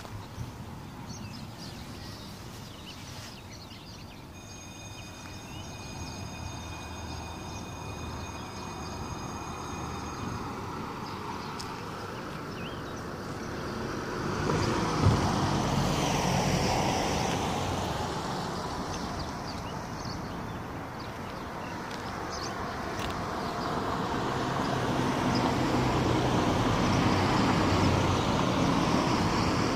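Road traffic: passing vehicles make a steady rumble that swells twice, once around the middle and again toward the end. A faint steady high whine sounds for about six seconds near the start.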